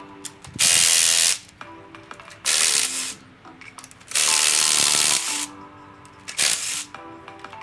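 Pneumatic ratchet run in four short bursts of hissing air and spinning, the third one longer, as bolts come out of the engine's valve train. Background music plays underneath.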